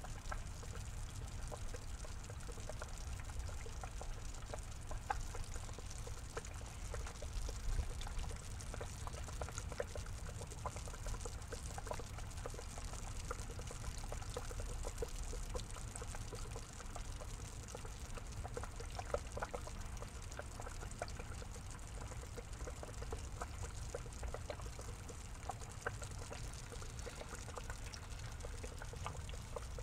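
Water pouring and trickling steadily into a small rock-lined pond, with many small drips and splashes scattered through it.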